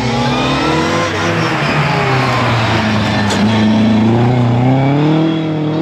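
Rally car engine under load, not yet in view: its revs sink over the first few seconds, then climb again as it accelerates.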